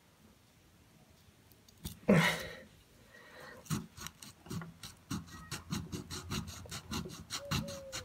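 A crankshaft oil seal being seated into a two-stroke brush cutter crankcase with a driver sleeve: one louder thump about two seconds in, then a quick run of light sharp taps and clicks several times a second.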